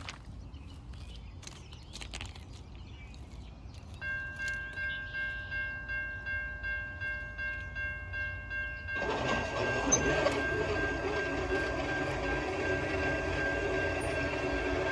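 A railroad grade-crossing bell starts ringing about four seconds in, pulsing about twice a second as the crossing signal activates for an oncoming train. A few seconds later the approaching freight locomotive's air horn starts and is held to the end, with the bell still under it.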